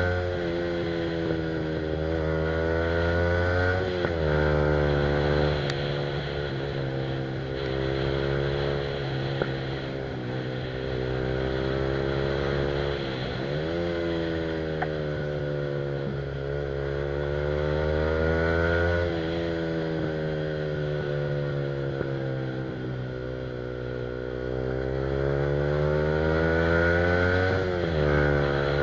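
Yamaha R15's single-cylinder engine through an aftermarket Akrapovic exhaust, cruising under way, its pitch rising and falling slowly with the throttle. The pitch dips briefly three times: around four seconds in, about halfway, and near the end.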